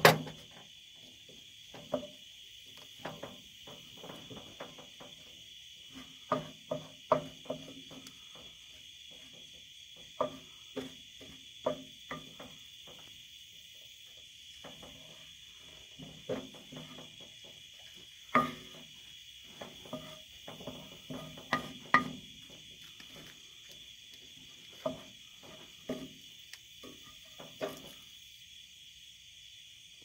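A wooden spoon scraping and knocking against a cast iron skillet in irregular clicks and taps as cooked-down egg yolks are stirred to render out their oil. Behind it, a steady high trill of night insects.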